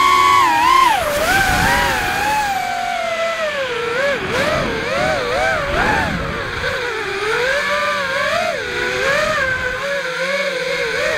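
Electric motors of an FPV drone whining, heard from its onboard camera. The pitch swings up and down quickly with the throttle, starting higher and steadier and then wavering lower.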